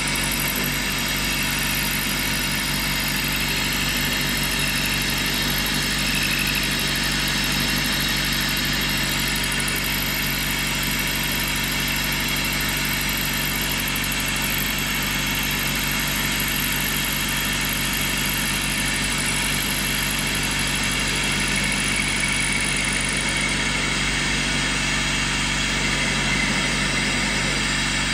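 Bridgeport milling machine running steadily while milling the flat sides of a square on a part.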